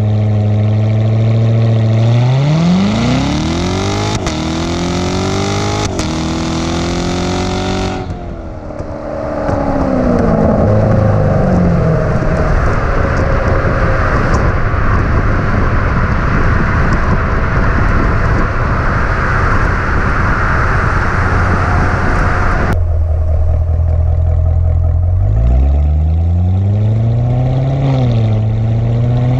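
Chevrolet Corvette Grand Sport's 6.2-litre V8 heard right at its quad exhaust tips: idling, then a hard launch with the revs climbing in steps, then the revs falling away under heavy wind and road noise. After an abrupt change it idles again, and near the end it revs up and down a few times.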